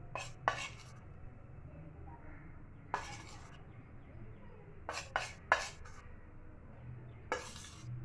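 A metal spoon knocking and scraping against a pan and bowl while turmeric is added to the simmering kadha: several short clinks and two longer scrapes, one about three seconds in and one near the end.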